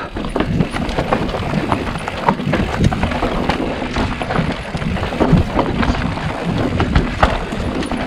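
Mountain bike rattling over a rough, loose trail at speed: dense irregular knocks and clatter from the tyres, chain and frame over a steady low rumble of wind and rolling noise, picked up by a handlebar-mounted action camera.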